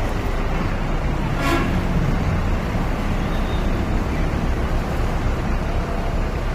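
Tour bus convoy running past with steady engine and road noise, and one short horn toot about a second and a half in.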